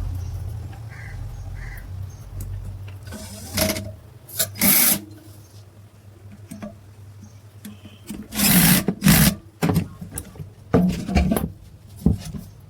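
A low electric hum dies away over the first couple of seconds. It is followed by a series of short knocks, clatters and scrapes of parts and tools being handled, loudest in a cluster about two-thirds of the way through.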